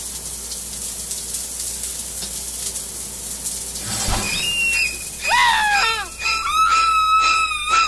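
Edited-in sound effects: a steady hiss, a short thud about four seconds in, then high whistle-like tones that glide down and then hold.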